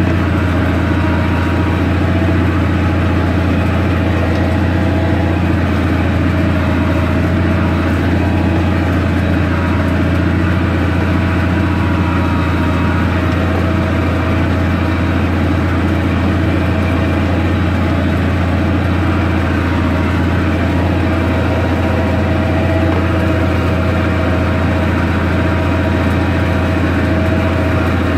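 MTZ 1221.5 tractor's diesel engine running steadily under load as it pulls a subsoiler, heard from inside the cab as an even, unchanging low drone.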